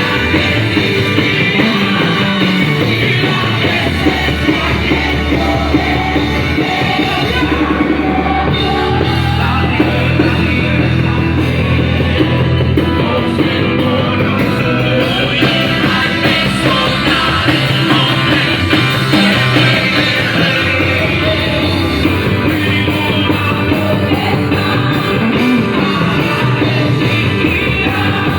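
Live worship band playing loud rock-style music with a drum kit, with singing.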